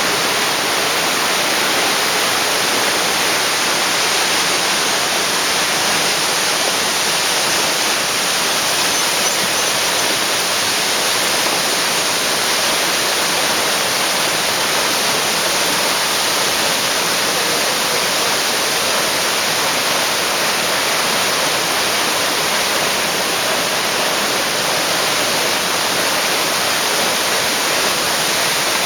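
Waterfall crashing, a loud, steady rush of falling water with no change.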